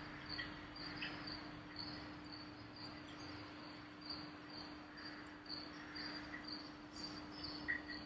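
Quiet room tone: a steady low hum with a faint, regular high-pitched chirp about two and a half times a second, like a cricket, and a few faint soft ticks.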